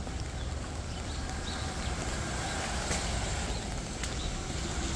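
Rain falling on a city street: a steady hiss over a low traffic rumble, with a few sharp ticks.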